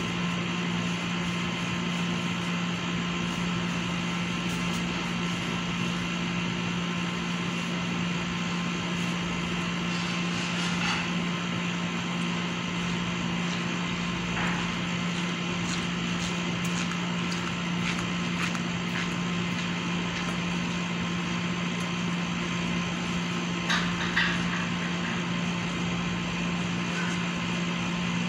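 A steady mechanical hum with one strong low tone, over a few faint clicks and knocks, two of them louder near the end.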